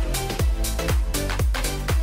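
Upbeat electronic background music with a steady kick-drum beat, about two beats a second.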